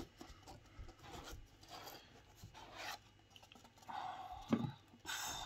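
Cardboard box lid being worked off its base, cardboard rubbing and scraping on cardboard, with a sharp tap right at the start and a louder rub about four seconds in.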